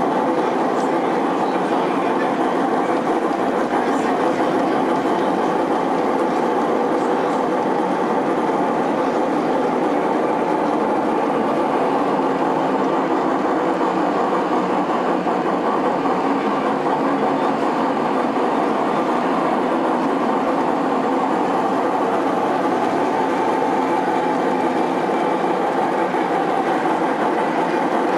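G scale model steam train running along its track, heard in a steady, even din of a large exhibition hall.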